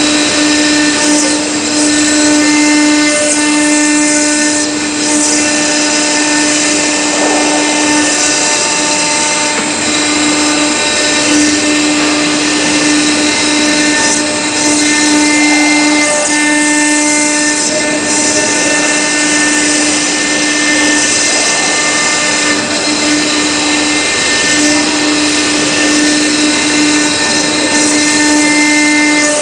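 CNC stone router spindle running with a steady whine as its engraving bit cuts into a marble slab, over a dense grinding hiss. The whine wavers and drops out briefly several times as the cut changes.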